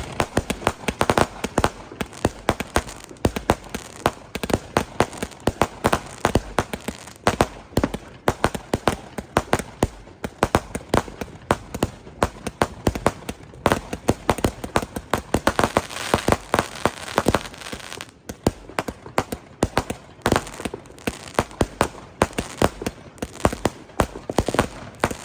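Fireworks and firecrackers going off in rapid, overlapping bangs and cracks, several a second without a break, busiest about two-thirds of the way through.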